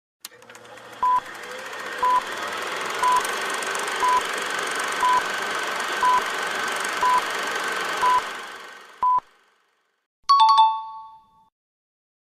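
Quiz countdown timer beeping: nine short, identical electronic beeps, one a second, over a steady hiss of film soundtrack ambience that fades out after the last beep. Just over a second later comes a single bright electronic chime that rings briefly and dies away.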